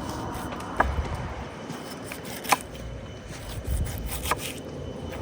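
Car driving, a steady low road rumble heard from inside, with three sharp clicks or knocks spaced a little under two seconds apart.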